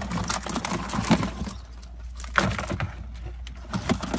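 Live blue crabs clattering and scrabbling in a container: an irregular run of clicks and knocks.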